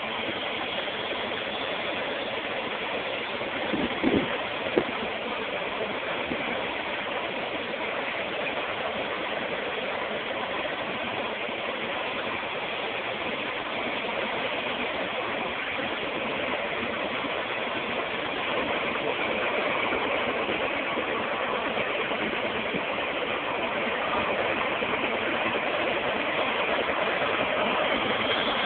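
Light turbine helicopter running on the ground: a steady rushing engine noise that slowly grows louder through the second half. Two brief knocks about four seconds in.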